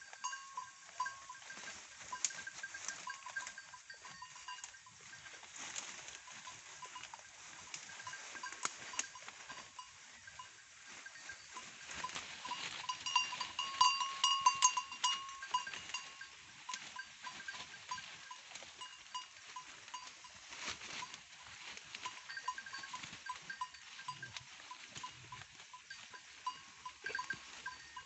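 Herd of local goats grazing and moving through forest undergrowth: scattered clicks and rustles, with thin high ringing tones that come and go, loudest about halfway through.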